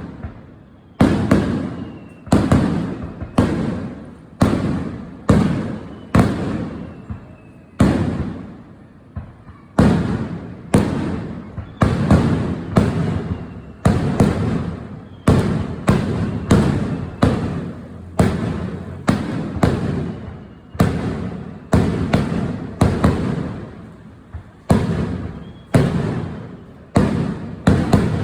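Fireworks display: aerial shells bursting in quick succession, about one boom a second, each sharp bang trailing off in a low echoing rumble before the next.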